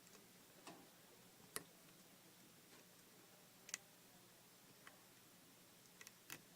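A few faint, scattered clicks of a lock pick working the pin stack inside a Master Lock Magnum padlock during single-pin picking, as pins give feedback and set under tension.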